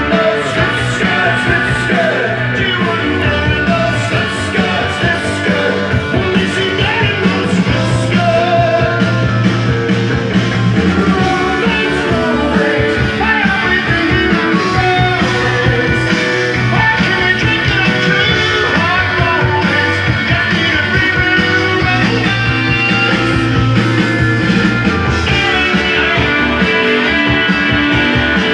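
Rock song with singing and guitar, played back from a vinyl record on a Garrard Zero 100 turntable.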